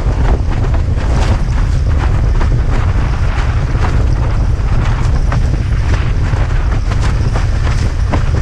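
Strong wind buffeting the microphone of a camera mounted on a windsurfing rig, a loud steady rumble, with many short splashes of chop hitting the board as it sails.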